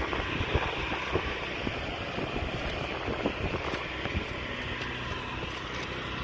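Steady wind noise rushing across the microphone, with scattered faint clicks and taps.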